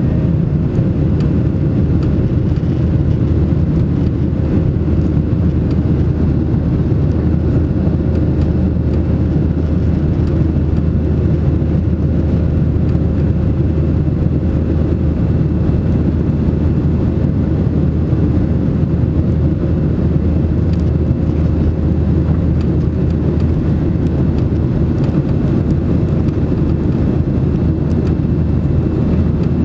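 Steady roar inside a jet airliner's cabin during the climb after takeoff: engine and airflow noise at climb power, with a faint steady hum running through it.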